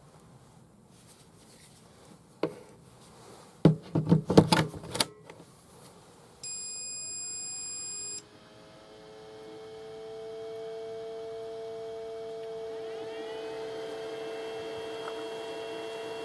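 A few handling knocks, then a Makita DC18RF battery charger beeps once for under two seconds. Its cooling fan then spins up, rising in pitch to a steady whine.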